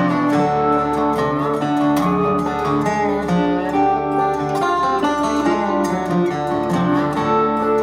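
Music with guitar and other plucked strings, in a country style.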